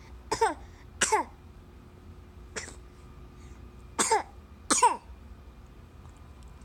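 A baby's coughs, each with a pitched squeak that slides down, like a yodel. There are two pairs of coughs with a fainter one between them.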